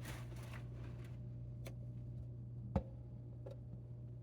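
Steady low hum with a few faint clicks, the sharpest one nearly three seconds in.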